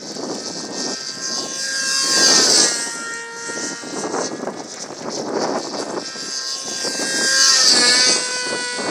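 Control-line aerobatic (F2B stunt) model airplane's engine and propeller buzzing as it flies circles on its lines. It swells and drops in pitch each time it sweeps past, about two seconds in and again near the end.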